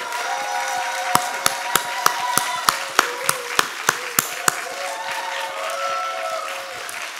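Audience applauding, with long held cheering cries from several voices over the clapping. A run of about a dozen sharp, loud claps, about three a second, stands out from about a second in to the middle.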